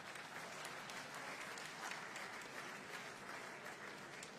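Large seated audience applauding, swelling in the middle and easing off toward the end.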